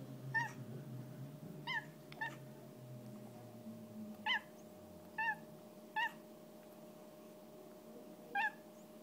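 Tabby cat making short, high chirping calls, like little barks, about seven of them spaced a second or so apart.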